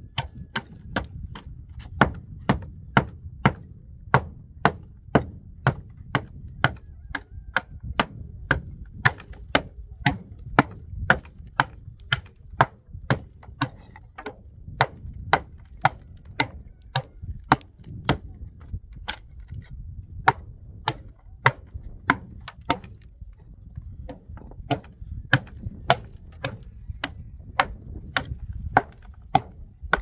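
Small mason's pick (tisheh) chipping old cement mortar off a roof edge: sharp, even strikes about two a second, with a brief pause a little after the middle.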